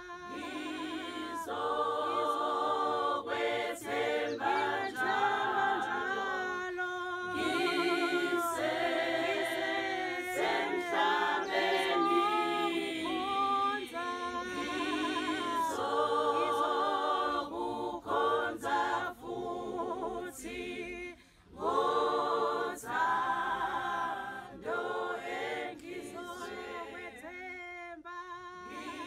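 A choir singing unaccompanied, several voices in harmony holding notes with a wavering vibrato. There is a short break about three quarters of the way through.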